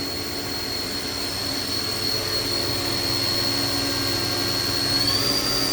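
Spindle of a 1994 Haas VF-3 vertical machining center running quietly at 5,500 RPM with a steady high whine, which steps up in pitch near the end as the speed is raised to 6,000 RPM.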